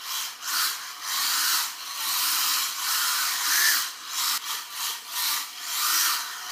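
WLtoys K969 mini RC drift car's small brushed electric motor whining as it drifts on a tiled floor. It swells and fades in repeated throttle bursts, about once a second.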